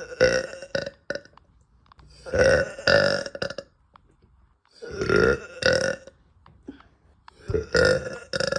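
A woman burping after eating: four big burps, about one every two and a half seconds, each coming in two pulses.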